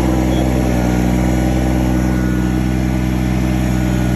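Kubota BX1850 garden tractor's small three-cylinder diesel engine running steadily at set throttle, an even, unbroken hum.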